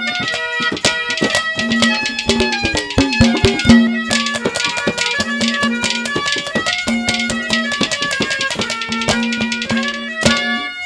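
Instrumental interlude of Haryanvi ragni folk music: fast, busy hand-drum strokes under a melody instrument playing long held notes.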